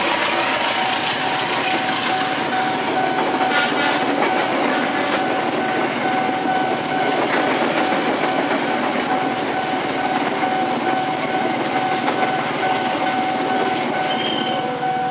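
Locomotive-hauled passenger train coaches rolling past over a level crossing, with a dense rumble and clatter of wheels on rail. A steady high warning tone sounds over it, the level crossing's alarm, and stops as the last coach clears. Short beeps come near the end.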